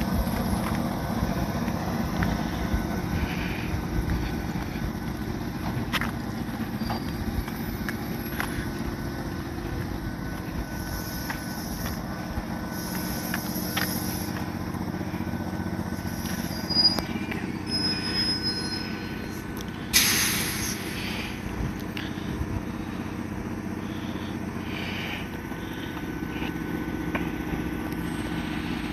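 Fujikyu 1000 series electric train (former Keio 5000 series) rolling slowly into the platform and coming to a stop, its wheels rumbling on the rails with a few brief high squeals. A sudden hiss comes about two-thirds of the way through.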